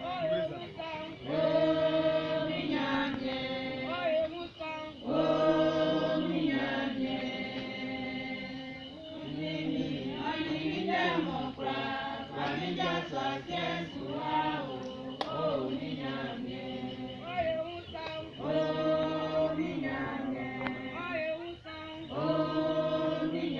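A group of people singing together, apparently without instruments, in sustained phrases a few seconds long with brief breaks between them.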